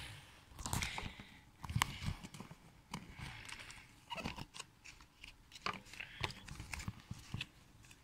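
Plastic bag crinkling and rustling as it is pulled out of a plastic toy capsule, with scattered light clicks and taps of plastic on a tabletop.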